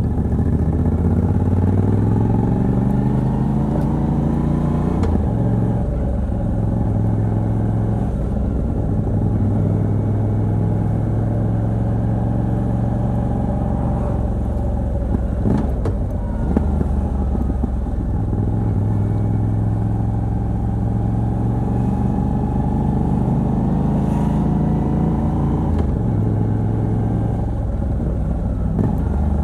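Moto Guzzi V85TT's air-cooled transverse V-twin, on its stock exhaust with a Mistral decat pipe, heard from the saddle under way. It pulls up through the revs for about five seconds, drops with a gear change, runs steadily, then climbs again and drops with another shift a few seconds before the end.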